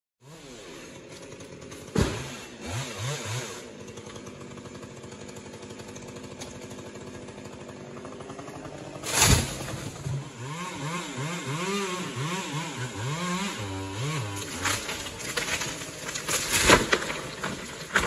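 Chainsaw revving up and down as a climber cuts pieces out of a dead oak, with several heavy thuds as cut sections are dropped onto the padded road, the loudest about two thirds of the way in and near the end.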